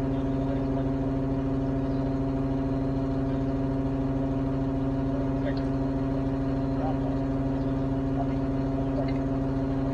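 Engine of an aerial ladder rescue truck running at a constant speed, a steady hum that does not rise or fall.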